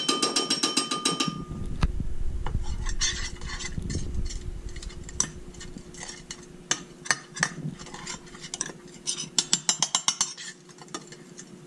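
Metal spoon scraping and clinking against a glass baking dish while spreading olive oil around it. There is a ringing clink at the start, then scattered sharp ticks with quick rapid runs near the middle and again near the end.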